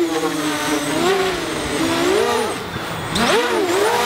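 Vusion Rise 250 mm racing quadcopter's motors and propellers whining in flight. The pitch swoops up and down several times in quick succession as the throttle is worked.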